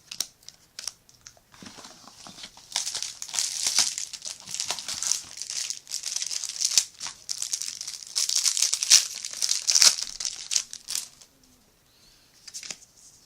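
Yu-Gi-Oh booster pack wrapper being torn open and crinkled by hand: a dense crackling rustle that starts about a second and a half in and dies away about two seconds before the end, followed by a few light clicks.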